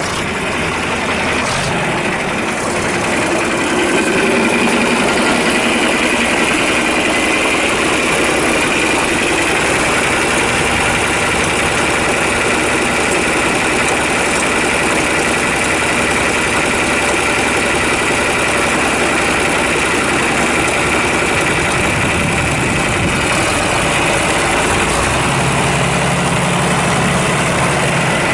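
A 1969 John Deere 4020's six-cylinder diesel engine running steadily just after being started, a little louder from about four seconds in. A deeper steady note joins near the end.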